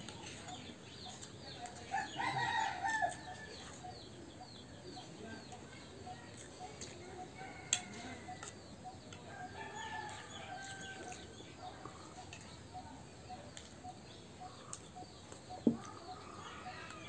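A rooster crowing once, about two seconds in, with quieter chicken calls later. A few sharp clinks of spoons against plates.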